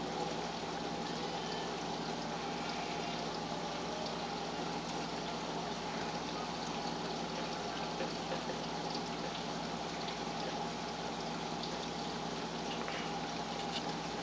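Aquarium filter's water return trickling and splashing steadily into the tank, with a faint steady hum under it.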